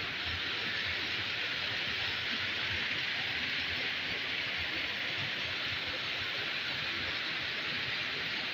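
Small waterfall cascading down rocks, a steady, even rush of water.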